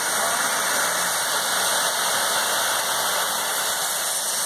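Air casters hissing steadily as compressed air escapes from under their pads, floating a loaded boat cradle across a concrete floor.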